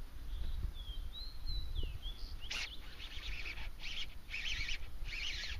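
Songbirds calling: a few thin whistled notes sliding up and down, then from about halfway a run of short buzzy chirps every half second or so. Under them is a low wind rumble on the microphone.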